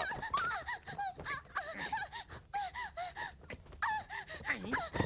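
A woman's short, high-pitched gasping cries and whimpers, repeated rapidly, in distress as she struggles against a man.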